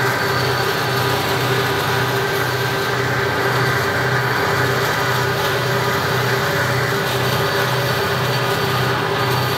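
Moving Florida East Coast Railway freight train heard while being paced alongside it: a steady running sound with a low throb about twice a second and a few steady hum tones.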